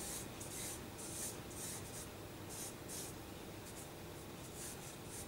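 Stick of charcoal scraping across drawing paper on an easel: about a dozen quick, irregular sketching strokes, each a faint scratchy hiss.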